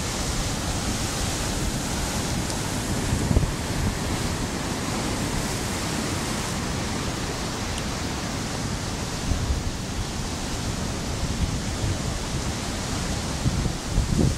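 Large ocean waves breaking over a reef, a steady rush of whitewater, with wind gusting on the microphone in irregular low buffets.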